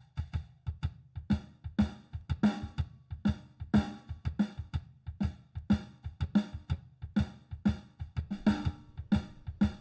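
Recorded drum tracks played back: a kick drum and a snare drum, each recorded separately and lined up, playing a steady groove of regular hits.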